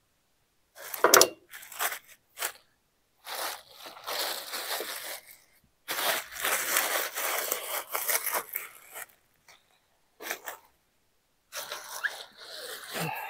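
Crinkly wrapping being handled, rustling and crinkling in irregular bursts with short pauses between.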